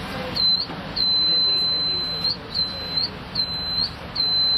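High-pitched electronic beeping from a buzzer: one steady tone sounded in an uneven pattern of short and long beeps, a short beep, a long one, two short beeps and another long one near the end.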